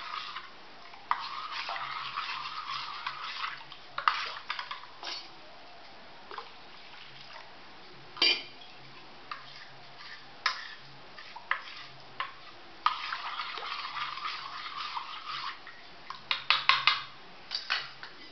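A steel spoon stirring a thin batter of gram flour, yogurt and water in a stainless steel bowl. Stretches of swishing stir alternate with sharp clinks of the spoon against the bowl, ending in a quick run of clinks near the end.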